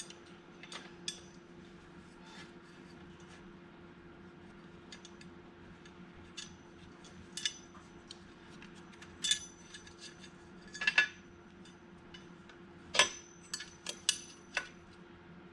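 Scattered metallic clicks and clinks of bolts, washers and hand tools as bolts are started into a dirt bike's radiator guard mounts. The loudest clinks come at about 9, 11 and 13 seconds in, over a faint steady hum.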